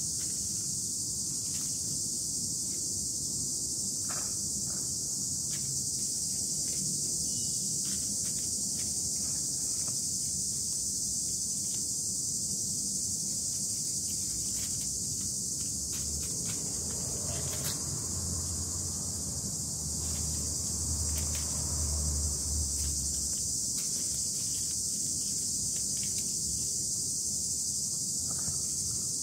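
Steady high-pitched chorus of insects, such as crickets or cicadas, with scattered light clicks and rustles of leaves. A low rumble comes in for a few seconds past the middle.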